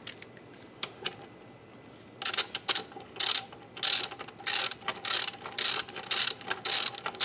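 Hand socket ratchet clicking in short back-and-forth strokes, about two a second, as a kickstand mounting bolt is tightened. A few single clicks come first, and the steady stroking starts about two seconds in.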